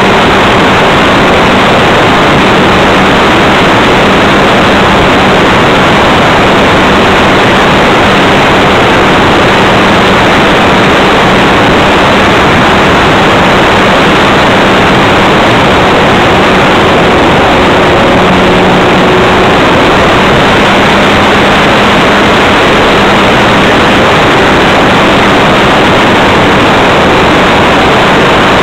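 Loud, steady rush of wind and propeller noise heard from on board an E-flite Leader RC plane in flight, with a faint hum from its electric motor underneath that steps up slightly in pitch about two-thirds of the way through.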